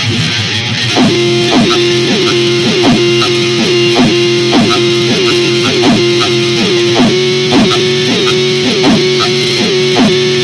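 Instrumental music with guitar: a repeating figure of plucked or strummed notes, a little under two a second, over a steady held note.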